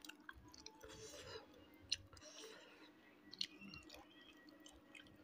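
Faint eating sounds from a person eating smoked pork and rice by hand: soft chewing with small wet mouth clicks and fingers working the food in a wooden bowl.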